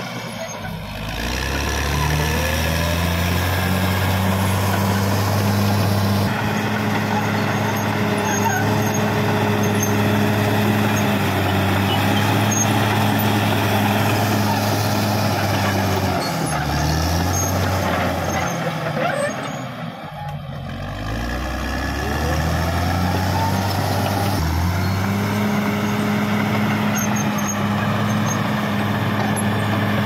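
Caterpillar D6R XL bulldozer's diesel engine working under load as the dozer pushes soil with its blade. The engine revs up in the first couple of seconds and runs steadily. It drops off about two-thirds of the way through, then revs back up and holds.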